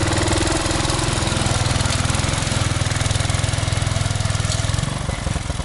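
Small engine running steadily, with an even rapid firing pulse; it eases off a little near the end.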